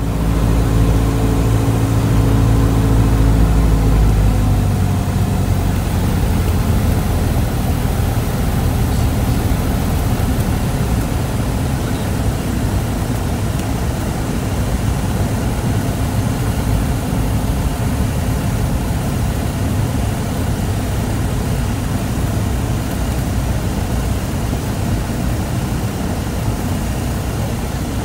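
Cabin noise of a 1952 Piper PA-22 Tri-Pacer in flight, heard from inside the cockpit: its single piston engine and propeller run steadily under a rush of airflow. A few seconds in, the engine's pitched drone gives way to a steadier rush.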